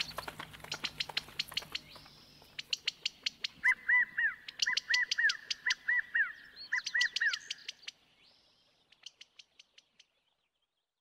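Hooves of several horses trotting and cantering on dirt, a quick, uneven run of sharp strikes. A bird calls in short repeated chirps in pairs and threes over the middle of it. The hoofbeats die away about eight seconds in, leaving a few faint ones.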